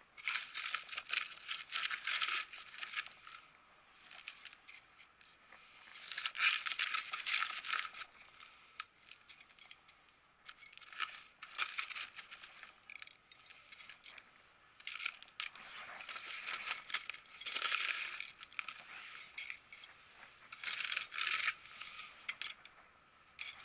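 A small metal hand trowel is scraping and stirring gritty potting mix of soil and masato (coarse decomposed-granite grit) in a plastic tray. It comes as rattling, scratchy bouts of one to three seconds, about five times, with short pauses between.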